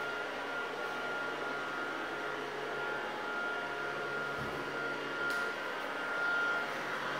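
Battery-powered fan motors of several light-up air hover soccer discs whirring steadily, with a thin high whine over the air rush.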